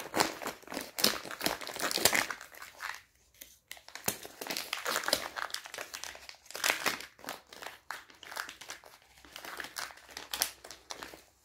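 Plastic cheese bag being cut open and handled: irregular rustling and crackling of the plastic, with a short pause about three seconds in.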